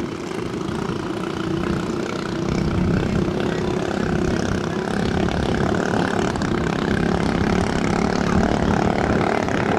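Racing boat's underbone motorcycle engine running flat out, a steady high drone that grows louder about two and a half seconds in.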